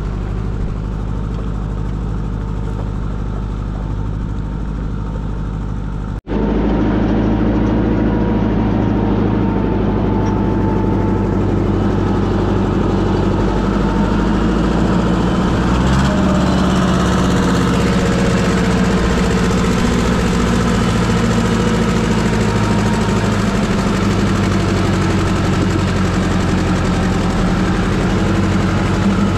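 Farm tractor engine running steadily while pulling a trailer loaded with stones. About six seconds in the sound breaks off for an instant and comes back louder and closer, as heard from on board the tractor.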